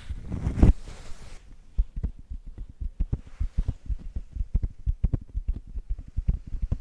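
Fingertips tapping and stroking right at the microphone in ASMR. A brief rustling swish comes first, then many quick, soft, low taps, several a second.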